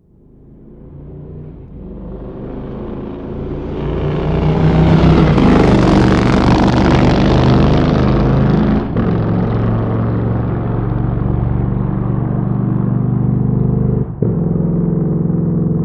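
Motorcycle engine that swells up from silence over about five seconds and is loudest a few seconds later. It then runs on steadily, with a brief drop about fourteen seconds in.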